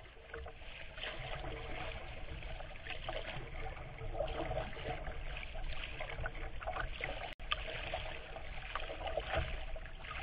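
Water splashing and lapping around a paddled kayak, with many small splashes over a low rumble. The sound breaks off for an instant about seven seconds in.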